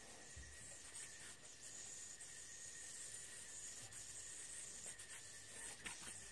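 Faint steady hiss, with a few soft rubs and ticks of a yoyo string sliding over fingers and a spinning yoyo as a string trick is worked.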